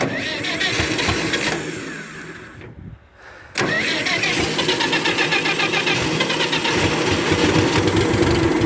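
Massey Ferguson MF30 backhoe loader's engine starting in the cold after months unused: it fires and runs unevenly, dies down briefly about three seconds in, then comes back abruptly at about three and a half seconds and runs steadily.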